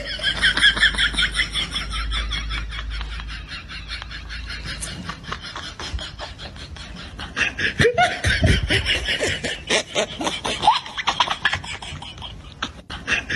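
High-pitched, rapidly pulsing laughter, louder at the start and again from about eight seconds in.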